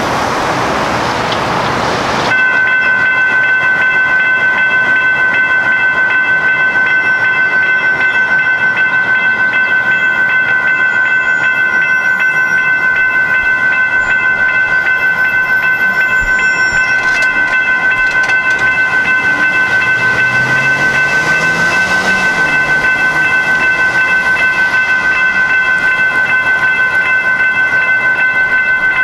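Railroad grade-crossing warning bells ringing steadily as the gates are down, starting abruptly about two seconds in.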